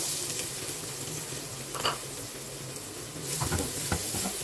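Chopped red onions frying in hot vanaspati ghee in a non-stick pot: a steady sizzle from onions freshly added to the hot fat. A few utensil clinks and scrapes on the pot, about two seconds in and again near the end, as they are stirred.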